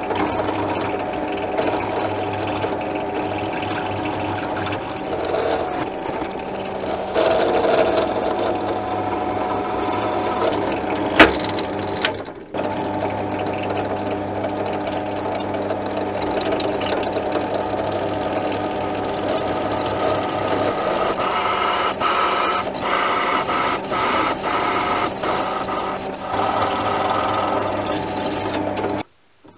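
Motor-driven drilling machine running steadily as a twist drill bores into an aluminium block and then into a steel part, with a sharp click about eleven seconds in. The running sound stops abruptly near the end.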